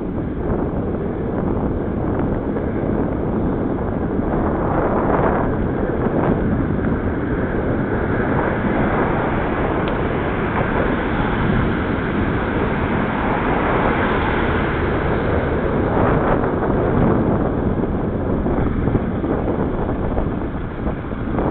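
Wind rushing over the microphone of a bicycle-mounted camera while riding, mixed with tyre and road noise, swelling now and then.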